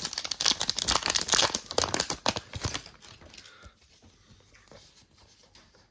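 A Kayou Naruto trading card booster pack being torn open, its wrapper crinkling in dense crackles for about three seconds, then fading to faint rustling as the cards are handled.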